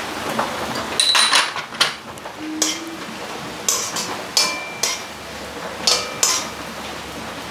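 Metal spoon stirring in a metal kadai, clinking and scraping against the pan's side and bottom. About eight sharp, uneven clanks, some with a short ring.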